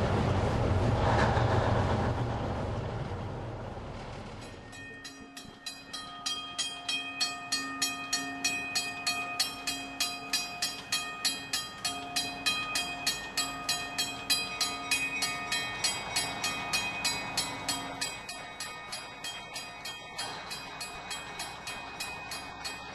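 A low rumble of train noise that fades away over the first four seconds, then a railway bell ringing steadily at about two strikes a second, its ring carrying between strikes.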